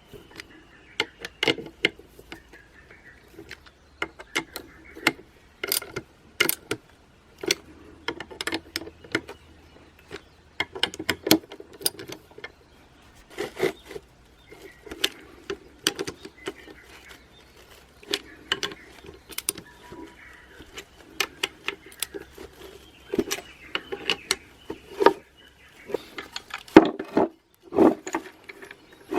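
Irregular metallic clicks, clanks and knocks of transmission parts being handled and worked on by hand, dozens of separate strikes at uneven spacing.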